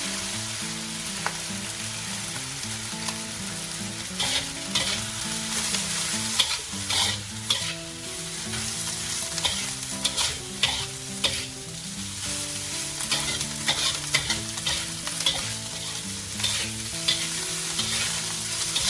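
Egg fried rice sizzling in a hot wok just after soy sauce goes in, stir-fried with a spatula that scrapes and knocks against the wok. The sizzle is steady, and the spatula strokes come in quick clusters from about four seconds in.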